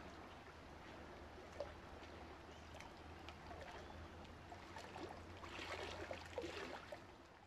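Faint underwater ambience: scattered crackling clicks over a low steady hum, swelling a little near the end before it fades out.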